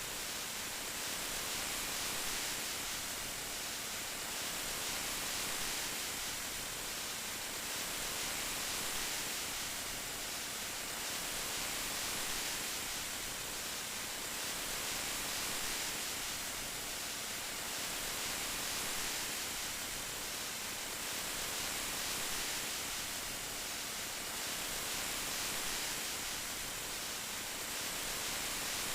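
Steady rain, an even hiss with gentle swells in loudness every few seconds.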